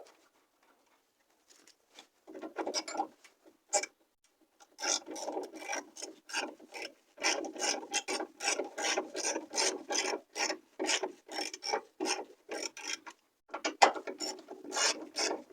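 Hand ratchet wrench turning a bolt in quick repeated strokes, clicking about two to three times a second. It starts about two seconds in and pauses briefly near the end.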